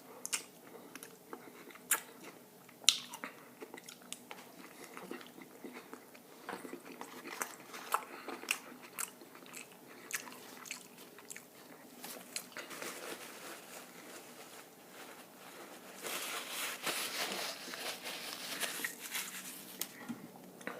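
Close-miked eating of a cheeseburger and fries: bites and chewing with many sharp mouth clicks, then a denser crackling stretch for a few seconds near the end.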